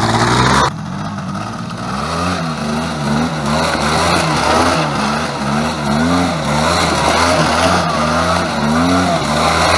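ATV engine revving up and down over and over as the quad spins a donut on a dirt trail, its pitch rising and falling about once a second. A loud rushing noise fills the first half-second.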